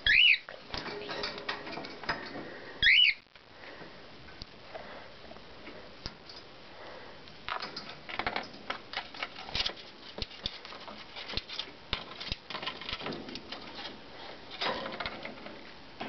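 Cockatiels calling: two loud whistled calls that rise and then fall in pitch, one right at the start and another about three seconds in. Between and after them comes a scatter of clicks, scratches and rustles.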